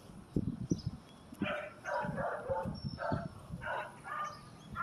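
A dog barking faintly: a run of short, separate barks starting about a second and a half in.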